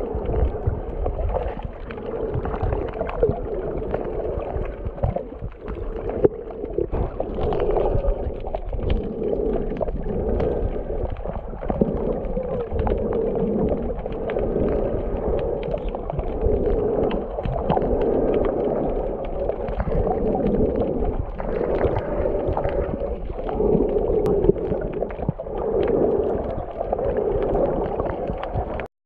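Underwater sound of a camera held below the sea surface while snorkelling: a steady rush of water with a swell every second or two.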